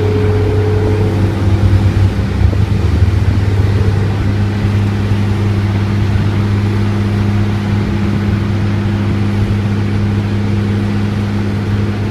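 Steady low engine drone during an airliner pushback, made up of several humming tones, briefly swelling a couple of seconds in.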